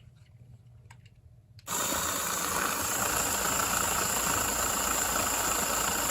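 Small Lego Technic electric motor and gear train switched on about a second and a half in, then whirring steadily with a constant high whine as the palm dozer drives.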